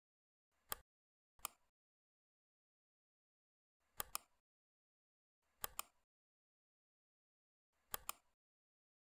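Computer mouse clicking: two single clicks in the first second and a half, then three quick pairs of clicks a second or two apart, with silence between.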